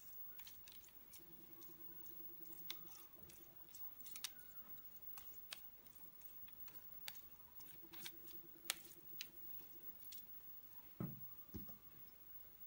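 Faint, sticky tapping and squishing of a silicone pastry brush spreading a wet yogurt glaze over soft bread dough, with a faint low hum that comes and goes twice and a soft thump near the end.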